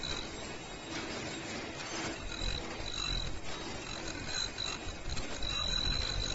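KN95 mask production machine running: a steady mechanical clatter of its chain-and-sprocket drive and rollers, with a thin high-pitched whine that comes and goes and then holds steady for the second half.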